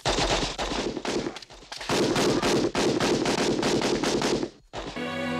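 Automatic gunfire from a war-film soundtrack: a long burst of rapid shots, a short break, then a second long burst of about eight shots a second. It stops just before the end, and music with held notes comes in.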